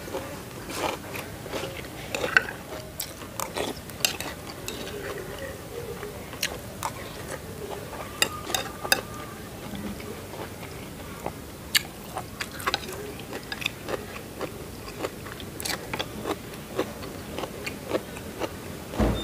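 Close-up eating sounds: a metal spoon clinking and scraping in a ceramic bowl of fish curry, with chewing and lip smacks in between, heard as scattered sharp clicks.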